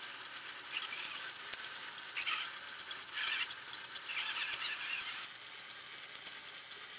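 Spinning drum weapon of a VEX Bite Force kit robot making a fast, steady high-pitched rattle from its plastic chain and gears. The drive motors whir in four short bursts as the robot is backed up and turned.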